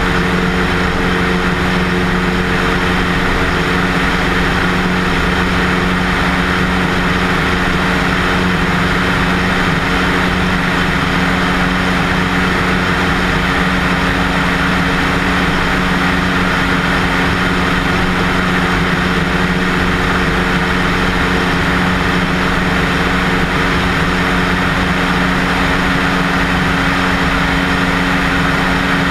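Single-engine Cessna's piston engine and propeller droning steadily in flight, a constant low hum under a steady rush of air.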